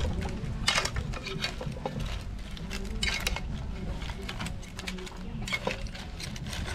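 Metal spoon scraping and clinking against a metal cooking pot as crabs are stirred, with irregular clinks and scrapes of shells and utensil against the pot.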